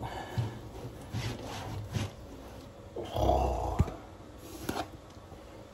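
Faint rustling and handling noises as wallpaper is pressed and trimmed around the pipes under a sink. About three seconds in there is a louder low, muffled sound that ends in a sharp click.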